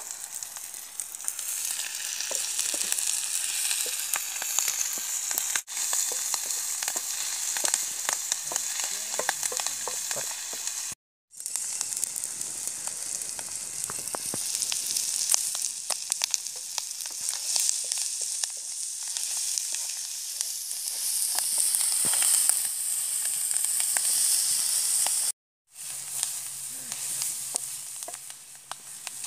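Red ant eggs sizzling and crackling as they fry in a small wok over a wood fire. The sizzle cuts out abruptly twice, for a moment each time.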